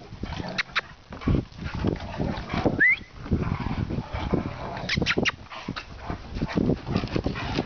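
Two dogs growling at each other while playing tug-of-war, a rough, pulsing rumble, with a short rising whine about three seconds in.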